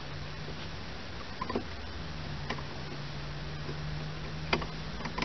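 A handful of light clicks and taps as a handle is worked at a bottle jack's release valve, over a steady low hum.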